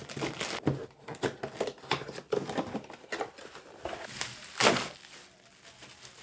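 Plastic courier satchel and bubble wrap crinkling and rustling as parts are pulled out by hand, in scattered crackles that are loudest about four and a half seconds in.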